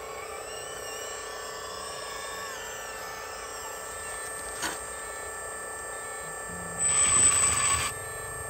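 Radio-controlled Hitachi Zaxis 360H model excavator's electric hydraulic pump running with a steady whine. A single sharp click comes a little past halfway, and a louder rush of noise lasting about a second comes near the end.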